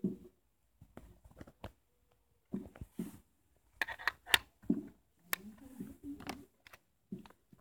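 Scattered plastic clicks and knocks, with short low thumps, from handling a toy RC submarine and its remote controller. No motor is heard running.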